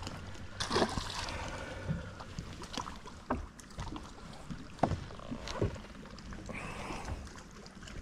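A black crappie dropped back into the lake with a small splash about a second in. After it come scattered light clicks and knocks of tackle handled on a fiberglass boat deck, over the faint steady sound of water around the hull.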